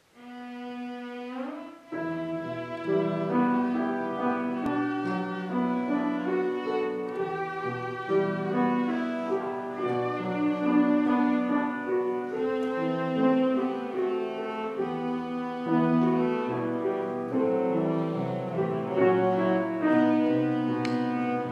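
Cello and grand piano playing classical music together, the cello carrying the melody over piano accompaniment. A single held note opens, and the piano comes in about two seconds in.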